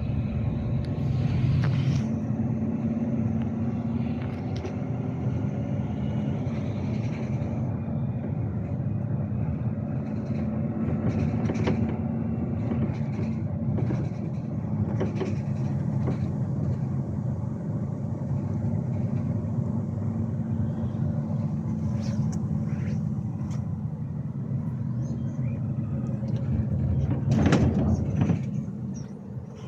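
Volvo B13R straight-six diesel engine of a coach running steadily, a low even drone, swelling louder briefly near the end.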